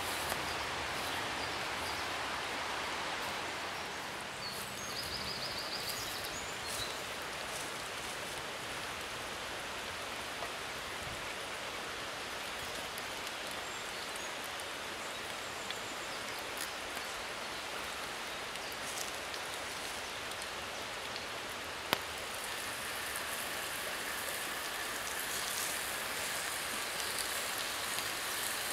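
Bacon frying in a cast iron pan over campfire embers: a steady sizzle with small crackles and spits, and one sharp pop about three quarters of the way through.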